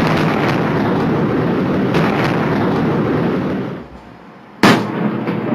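Loud, dense rumbling noise from the Tianjin port chemical warehouse explosions. It falls away nearly four seconds in, then a sudden loud blast comes in about a second later.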